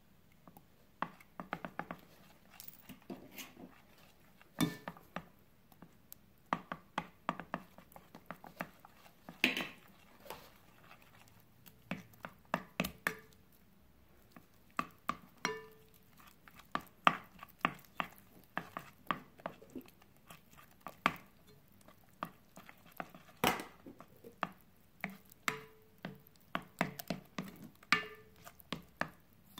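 Spatula and spoon knocking and scraping against a Pyrex glass mixing bowl while batter is stirred: irregular clicks and taps, a few of them leaving a brief ring from the glass.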